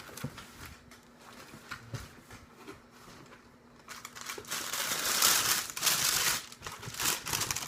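Paper crinkling and rustling as new skate shoes are unwrapped from their box: light rustles at first, then a loud stretch of crinkling for about two seconds past the middle, then a few shorter rustles.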